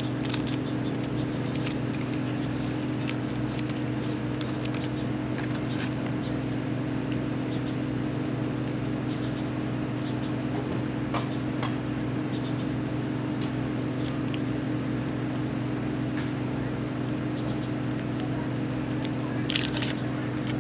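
Steady machine hum, with the faint crinkle and small clicks of foil ducting tape being peeled and pressed on by hand.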